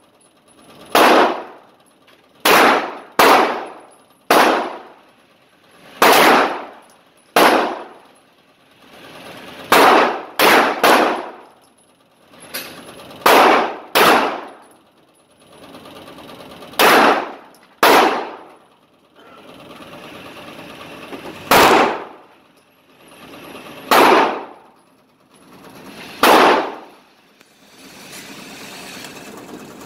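Handgun shots fired one at a time, about sixteen in all, mostly one to three seconds apart with a few quick pairs, each ringing briefly off the walls of an indoor shooting range.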